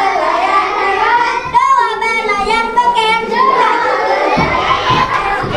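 A child's high singing voice carrying a melody over music, with held, gliding notes. A fuller low accompaniment comes in about four seconds in.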